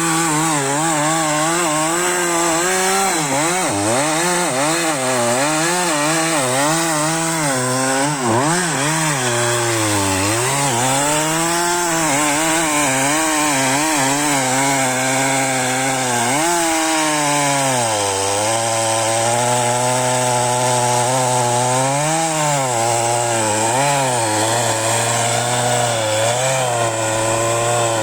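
Husqvarna 372XP two-stroke chainsaw running under load while cutting holm oak firewood. The engine pitch keeps wavering up and down as the chain bites, settling a little lower from about two-thirds of the way through.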